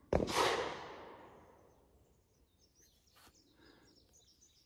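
A single distant gunshot: a sharp crack just after the start that rolls away in a long fading echo over about two seconds.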